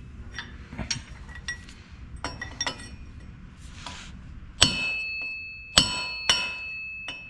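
Hammer striking the brake rotor's bolts, metal on metal, to drive the rotor off a portal box hub. Several light taps come first, then three hard blows in the second half that ring.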